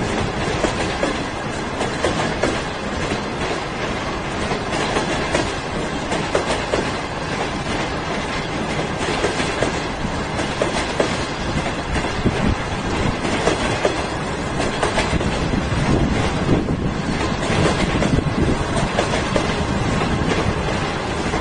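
Green-liveried Chinese conventional passenger coaches rolling past: steady wheel-on-rail noise with many clacks of the wheels over the rails.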